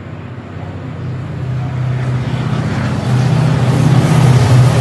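Freight train approaching behind a locomotive: a steady low drone grows steadily louder, and from about halfway through, wheel and rail noise rises over it as the train draws near.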